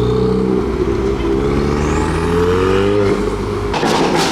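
Modified car engine running close by, its note rising a little in a light rev and dropping back about three seconds in. Near the end it gives way to a rougher, noisier sound with a couple of sharp cracks.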